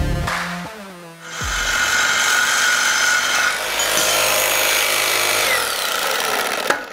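Cordless reciprocating saw with a Diablo Steel Demon AMPED carbide blade cutting through a 3/8-inch-thick steel I-beam, a steady loud rasp that starts about a second and a half in and stops abruptly near the end. The blade is worn but still cutting on its seventh cut through the beam.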